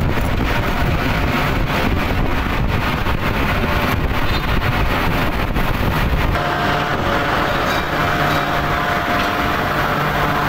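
Steady, loud industrial roar on a steel continuous-casting floor, with no breaks. About six seconds in, a steady hum with a held tone joins it.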